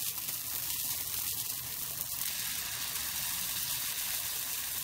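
Dosa batter sizzling in a hot four-cavity non-stick pan, a steady hiss.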